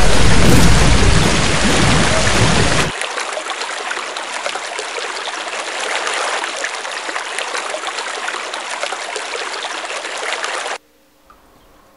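A loud, deep rushing noise abruptly loses its low end about three seconds in and goes on as a steady hiss. The hiss cuts off suddenly near the end, leaving only faint room tone.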